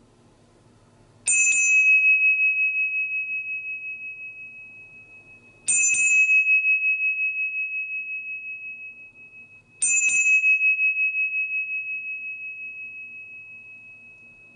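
A small Buddhist bowl bell (rin) struck three times, about four seconds apart. Each strike rings one high, clear tone that wavers as it fades slowly.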